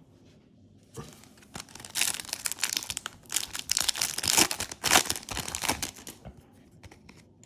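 Foil booster pack wrapper being crinkled and torn open, a dense stretch of crackling about four seconds long that starts about two seconds in, after a couple of isolated clicks.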